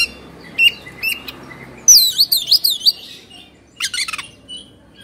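Oriental magpie-robin (kacer) singing in short, loud phrases: a few single chirps, then about two seconds in a rapid run of whistled notes sweeping up and down, and two more sharp phrases near the end. The choppy, fired-up delivery is what keepers call 'emosi' or 'kongslet'.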